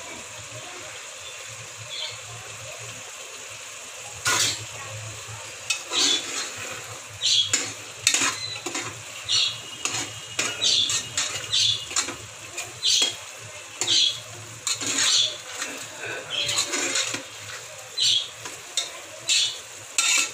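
Metal spatula stirring and scraping minced mutton keema in an aluminium pressure cooker, over a steady sizzle of the mince frying in oil. The scraping strokes start about four seconds in and repeat roughly once or twice a second.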